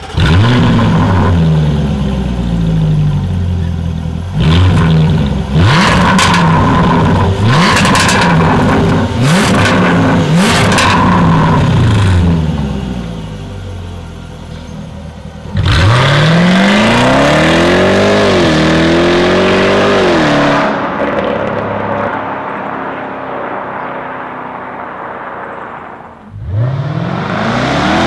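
2017 Jaguar F-Type SVR's 5.0-litre supercharged V8 heard at the exhaust, catching at the very start and blipped through a string of quick revs with sharp cracks as the revs drop. It idles for a few seconds, is then revved up and held high for several seconds, and settles back to idle. Near the end it rises again as the car pulls away.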